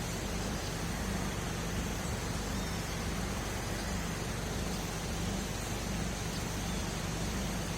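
Steady rushing of a large waterfall, running high after overnight rain.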